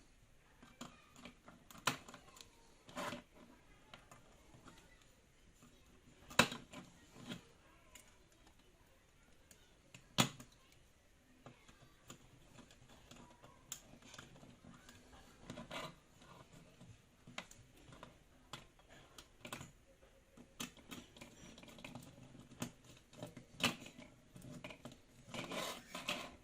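Scattered small clicks and taps of hands working on wires and a power supply board, coming irregularly, with a few sharper knocks and a quick run of clicks near the end.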